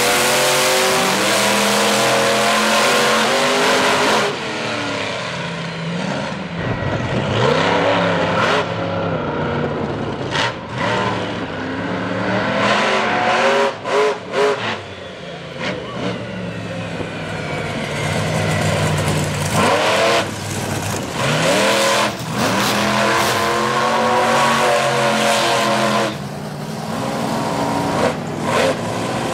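Monster truck engines at full throttle during drag-strip runs, revving hard, with the pitch climbing and falling several times and dropping off briefly now and then.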